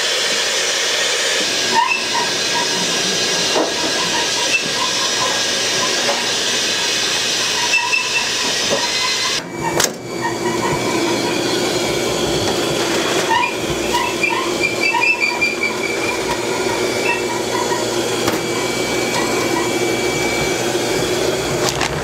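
Steady hiss of steam from a dumpling steamer, with scattered light clinks and a brief drop a little before the middle.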